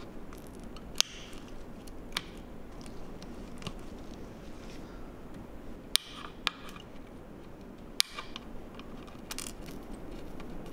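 Flush cutters snipping through a surface-mount electrolytic capacitor on a circuit board, cutting away the can and clipping its legs to remove it. Five sharp snips come at uneven intervals over a steady low hiss.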